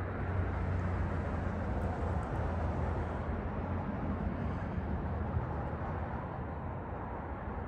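Steady low outdoor rumble with a hiss above it.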